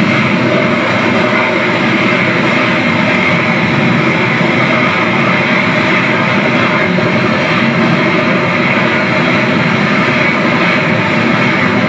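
Rajdhani Express passenger train running past at speed: a steady, loud rumble of its coaches' wheels on the rails.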